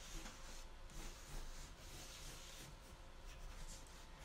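Faint scratching of a pencil on paper in several short strokes as a circle is sketched.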